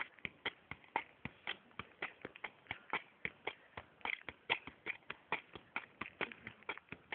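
Football being kept up with the feet: a steady run of light taps, about three or four a second, each one a touch of foot on ball.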